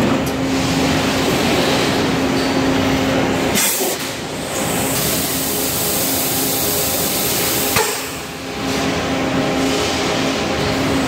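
Electric extrusion blow moulding machine running: a steady machine hum, a sharp clack about three and a half seconds in and another near eight seconds, and a high hiss between the two clacks.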